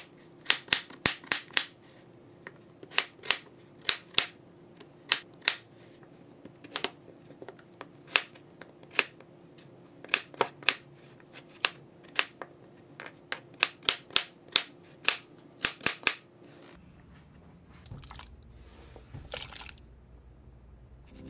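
Chef's knife slicing peeled raw potatoes on a plastic cutting board: sharp, irregular knocks of the blade striking the board, about two a second, stopping about 17 seconds in.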